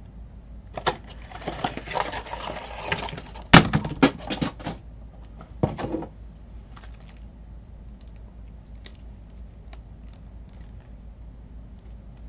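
Cardboard trading-card box and foil card packs being handled: rustling and clicking, with a sharp knock about three and a half seconds in and a quick run of clicks as packs spill out, then only a few faint taps.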